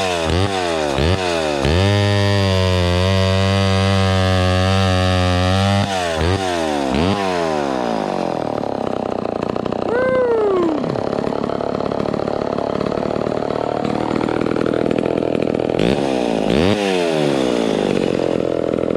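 Vintage Homelite XL12 two-stroke chainsaw running: several quick throttle blips at a steady lower speed, then held at high revs with two brief drops and recoveries near the end. The saw is running rich ("mighty fat") on the high end, with its carburetor still to be leaned out.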